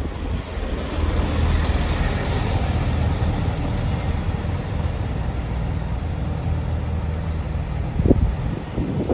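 Class 158 diesel multiple unit running at the platform, its underfloor diesel engine giving a steady low rumble that is louder for a couple of seconds about a second in. A brief knock about eight seconds in.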